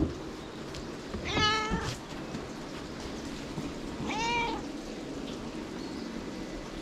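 White domestic cat meowing twice while being stroked: once about a second in and again about four seconds in, the second call rising and falling in pitch.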